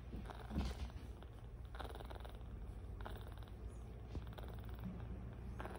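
Twenty-day-old black kitten purring steadily while being stroked: a low, continuous rumble that swells a little over once a second.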